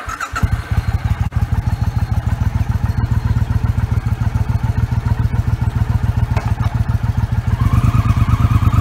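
Motorcycle engine running with a rapid, even exhaust beat, growing louder as it revs up near the end.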